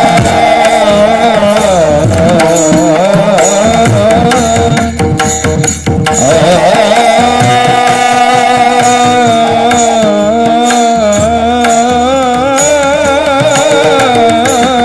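Devotional kirtan singing: a man holds long, wavering, ornamented notes over a steady drone, with hand-drum strokes beneath. The voice breaks off briefly about five seconds in, then carries on with another long held phrase.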